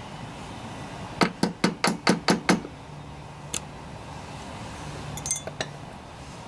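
Small metal hand tools (seal picks) clinking together as one is chosen: a quick run of about seven sharp clicks, then a single click and a short cluster of light rattles near the end.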